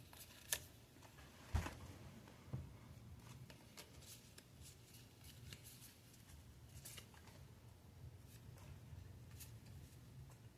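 Pokémon trading cards being handled and flipped through, soft rustles and light clicks of card stock, with three sharper taps in the first few seconds.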